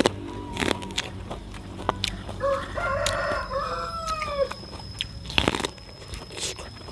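A rooster crows once for about two seconds in the middle, over sharp crunching bites and chewing of raw purple corn kernels off the cob, with a loud crunch near the start and another near the end.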